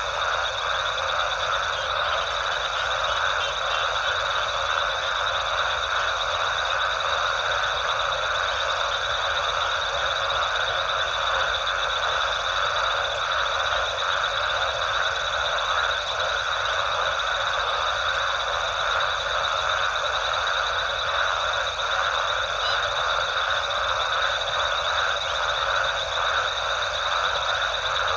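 Dense night chorus of frogs calling continuously, with a steady high-pitched trill running over it.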